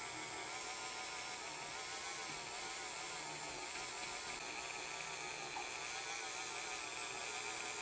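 Handheld rotary tool spinning a small polishing bit against a diecast zinc chassis, giving a steady whir.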